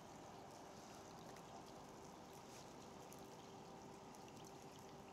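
Near silence: light rain falling on the river, sparse faint drop ticks over a steady low hiss.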